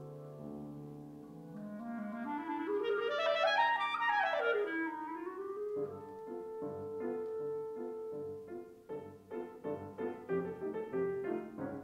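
Clarinet and Steinway grand piano playing classical music together. The clarinet plays a fast run that climbs and falls back and then holds a long steady note over the piano. In the last few seconds the piano plays alone in short repeated chords.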